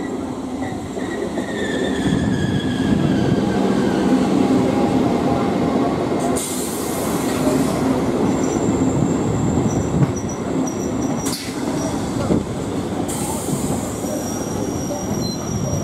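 Electric multiple unit local train rolling past along the platform with a steady rumble of coaches on the track. A whine falls in pitch over the first few seconds, and from about six seconds in there are thin, high, intermittent squeals with a few short hissing bursts.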